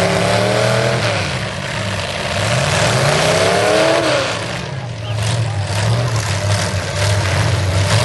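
Demolition derby cars' engines running hard on a dirt track, one revving up in rising sweeps about a second in and again around three to four seconds, then holding a steadier note, over the constant noise of other engines.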